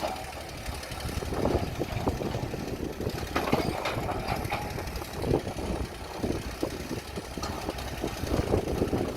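Old excavator's diesel engine running steadily, with irregular knocks and clanks, and a cluster of louder, sharper ones about three and a half seconds in.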